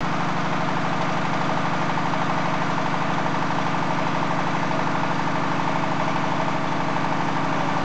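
XY-1A core drilling rig's engine running steadily at idle, with a fast, even pulsing beat.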